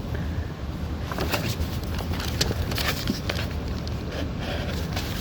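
Steady low rumble with irregular light clicks and rustles scattered through it.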